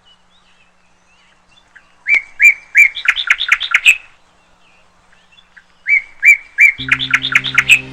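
A songbird singing two phrases. Each opens with a few slurred notes, then runs into a quicker series of rising notes. Near the end, music comes in with steady low notes.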